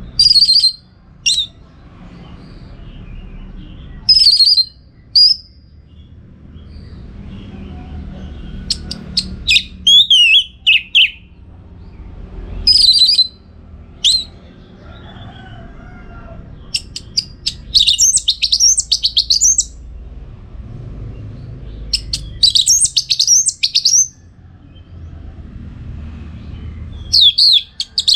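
Orange-headed thrush singing: short bursts of high, varied phrases every few seconds, some of them longer rapid twittering runs, over a low background rumble.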